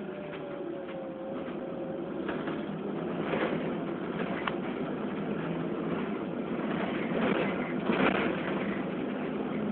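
Volvo B7RLE single-deck bus heard from inside the saloon while under way: steady engine and road noise with a few sharp clicks, getting louder about two to three seconds in.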